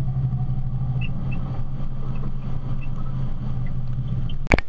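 Jeep driving on a dirt trail, heard through a camera mounted beside its front wheel: a steady low engine and drivetrain drone with tyre noise. It cuts off abruptly near the end.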